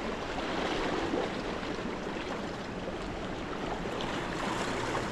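Sea water washing and sloshing around shoreline rocks, a steady rush of surf.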